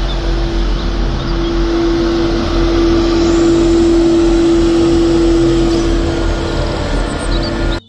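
Street sweeper truck running as it works along the kerb: a steady mechanical noise with a low hum and a humming tone that swells, loudest a few seconds in as the truck passes close, then eases.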